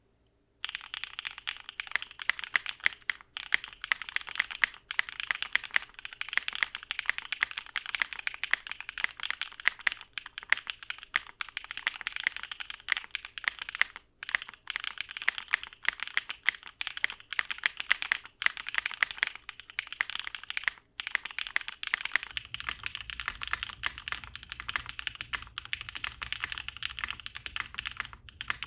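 Fast, continuous typing on a 60% custom mechanical keyboard with an O-ring-mounted polypropylene plate, Kailh BCP switches and GMK keycaps, broken by a few short pauses. The typing starts just under a second in.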